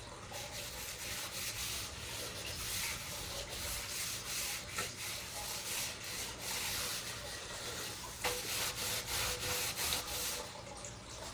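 Hand scrubbing on the copper body of an antique fire extinguisher, an uneven scratchy rubbing in repeated strokes as tarnish and stains are worked off with polish.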